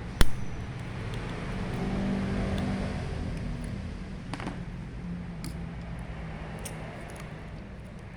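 An engine running steadily in the background, swelling a little about two seconds in and easing off again. A single sharp metallic click just after the start is the loudest sound, and a few lighter clicks follow later.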